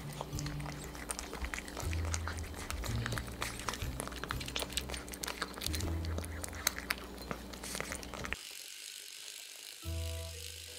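Irregular quick clicking and crunching from cats eating dry food next to a moving toy praying mantis, over a low hum that comes and goes. Near the end the sound cuts to a moment of near silence, then light background music begins.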